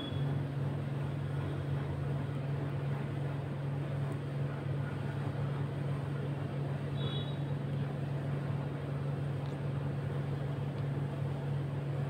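Steady low mechanical hum with a faint noisy hiss over it, with one brief faint high chirp about seven seconds in.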